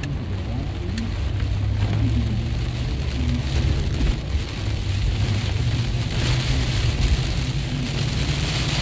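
Heavy rain falling on a moving car's roof and windshield, heard from inside the cabin over the low rumble of the car and its tyres on the wet road. The rain's hiss grows louder about six seconds in.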